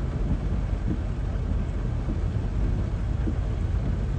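Torrential rain pouring down in a steady rush over a continuous low rumble, in a flash-flooding downpour.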